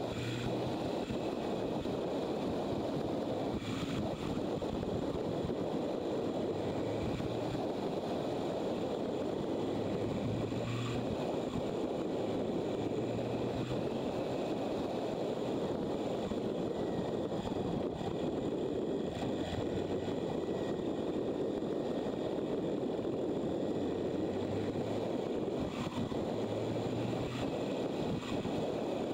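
Motorcycle riding at speed: steady wind rush over the camera microphone with the engine's drone underneath, its pitch shifting a little now and then.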